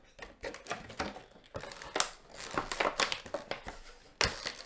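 Cardboard and plastic packaging of a Pokémon trading card collection box being handled and opened by hand: irregular crinkling and rustling with small clicks.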